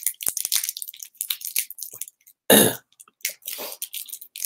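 Scattered small clicks and crinkles of hands handling things, with one short, loud cough-like burst about two and a half seconds in.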